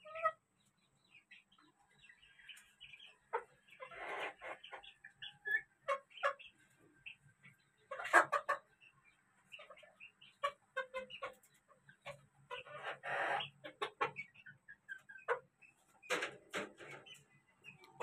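A small flock of chickens clucking at intervals as they feed, with a few louder bursts of calling about four, eight, thirteen and sixteen seconds in.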